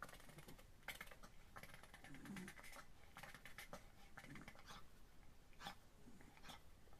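Faint rustling and scattered soft clicks from a puppy squirming and mouthing at a hand while held on a fleece blanket.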